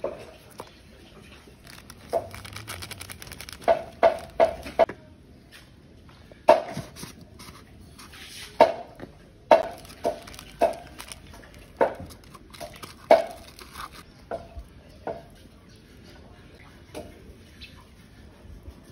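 Irregular sharp taps and clinks against a stainless steel bowl, each with a short metallic ring, as ground spices are tapped out of jars into it. Some come in quick runs, and they grow fainter after about 14 seconds.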